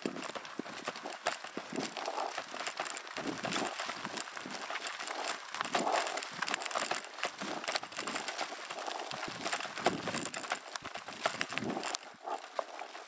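Bicycle ridden over a rough, rutted dirt track: tyres crunching on the ground while the bike and its boom-mounted camera rattle and knock irregularly with every bump.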